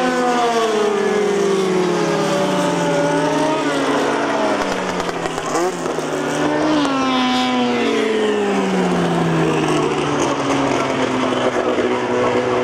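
Several midget race cars' engines at racing speed, overlapping, each one's pitch falling as it passes and eases off for the turn.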